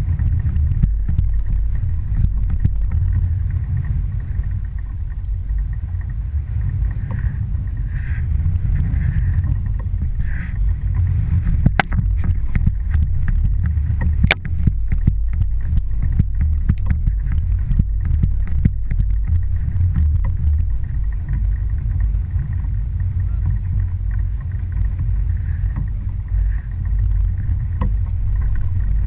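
Small fishing boat under way on the open ocean: a steady low rumble of motor and water, with a run of sharp knocks and rattles in the middle.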